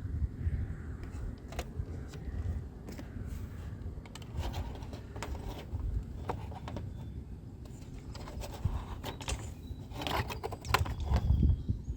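Wind gusting on the microphone, with scattered clicks and rattles that come thickest near the end.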